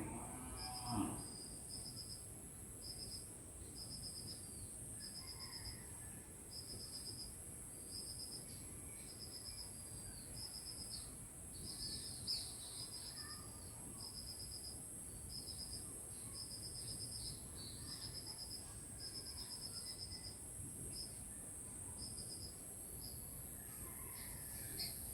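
Rural insect chorus: a steady high-pitched trill with repeated groups of rapid chirps, and a few faint bird calls scattered through it. A brief low animal call, like a cow lowing, sounds right at the start.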